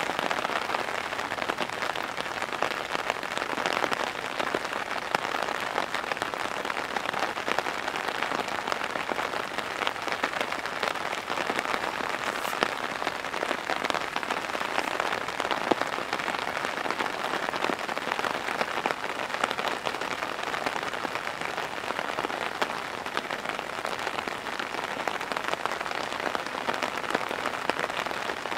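Heavy, pouring rain falling steadily, a dense unbroken patter of drops.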